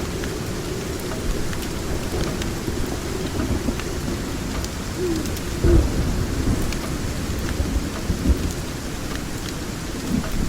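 Steady rain with rolling thunder, the low rumble swelling loudest about six seconds in and again a little later, with scattered faint sharp crackles over the rain.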